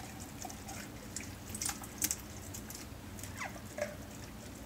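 A utensil scraping and clicking against the inside of an opened tin can as sauerkraut is worked out of it into a stainless steel pot: a few light, scattered clicks.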